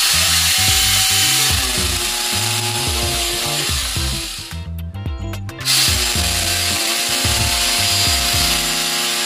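Electric drill boring holes into the wall for the wall plugs that will hold the water heater's mounting screws. It runs for about four and a half seconds, stops for about a second, then starts again and keeps running.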